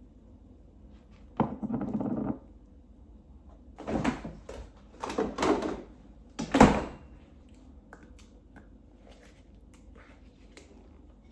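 A refrigerator door being opened and shut, with knocks and rattles from things handled and taken out of it. The sharpest knock, about six and a half seconds in, is the loudest.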